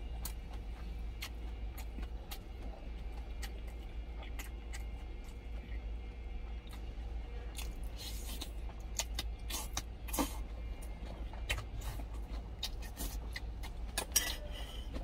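Someone eating from a stainless steel lunch tin: small clicks and clinks of a metal spoon against the tin, with chewing, and a short slurp about eight seconds in as food goes into the mouth, over a steady low hum.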